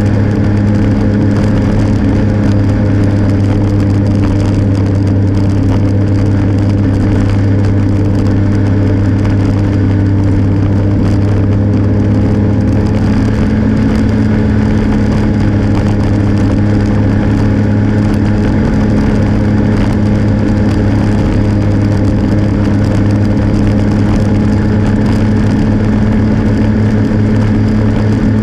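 A vehicle's engine running at a steady cruising speed, a constant low drone, with noise from travel over a snow-packed road.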